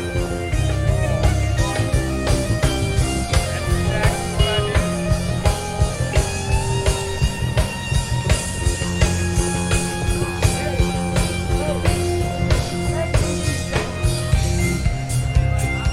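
Live rock band playing: guitar lines with sustained and bending notes over heavy bass and a drum kit keeping a steady beat.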